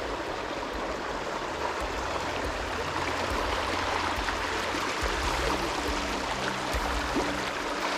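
Shallow creek running over bedrock: a steady rush of flowing water.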